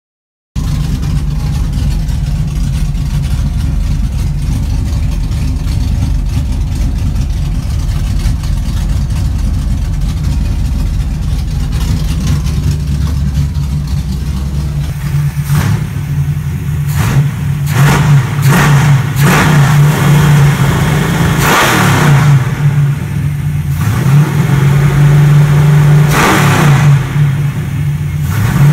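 Big-block Mopar V8 of a 1977 Plymouth Fury drag car, fed by a Holley 850 four-barrel carburettor, idling steadily, then revved in a run of short throttle blips from about halfway through, the throttle worked by hand at the carburettor.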